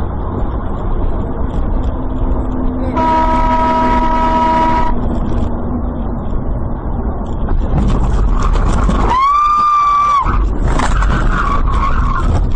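Road and engine noise inside a moving car's cabin, with a horn sounding steadily for about two seconds about three seconds in. About nine seconds in, a second, higher-pitched tone sounds for about a second.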